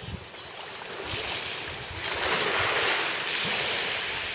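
Small waves washing in over a pebble shore and the shallow water, swelling about two seconds in and easing off near the end.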